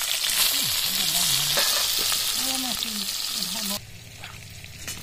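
Potato wedges frying in hot oil in a karai (wok), a steady sizzle. It cuts off abruptly about four seconds in, leaving only a quiet low hum.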